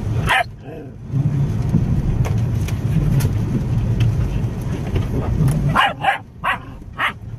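A small dog barking inside a car, once at the start and then in a quick run of four or five barks near the end, over the car's steady low rumble.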